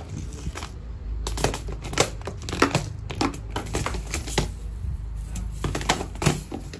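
Clear plastic multi-compartment cases of nail-art sequins being lifted and shifted in a drawer: irregular plastic clacks and rattles, loudest at about two seconds and again near the end.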